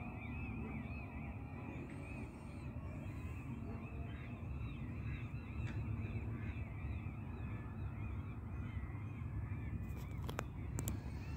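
Birds calling in a rapid run of short, repeated chirps over a low, steady rumble, with a few sharp clicks near the end.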